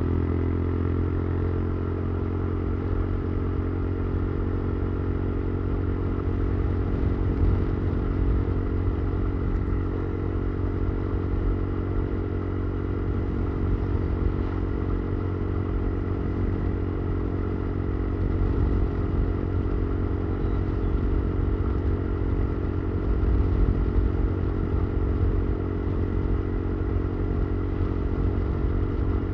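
Motorcycle engine running at a steady pace while being ridden; its pitch dips slightly in the first second, then holds steady.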